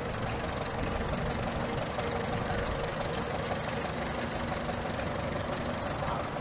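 Red Farmall tractor's four-cylinder engine running at low speed with a steady, rapid beat as the tractor drives slowly past.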